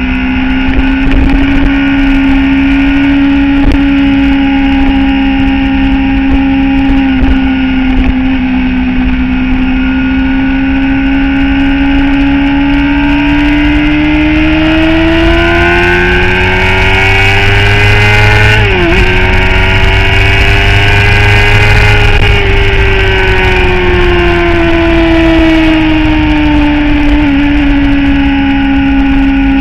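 Motorcycle engine running at speed on the road. About halfway through its pitch climbs slowly as it accelerates, dips sharply for a moment, then holds. Later it eases off and the pitch falls slowly, with another short dip near the end.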